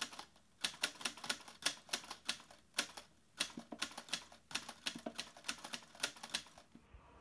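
Typing sound effect: sharp typewriter-style key clicks in a quick, irregular run of several a second, which stop just before the end.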